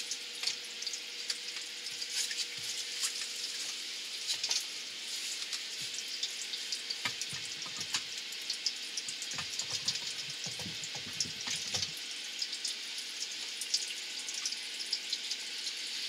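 Water trickling and splashing steadily into a basement sump pit. Scattered knocks and clunks come as a submersible sump pump on a PVC stand is lowered into the pit and set among the pipes, with low thumps from about seven to twelve seconds in.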